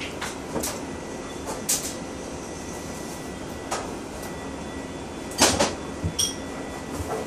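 Pencil strokes on paper: short scratchy swishes every second or two, the loudest a pair about five and a half seconds in, over a faint steady hum.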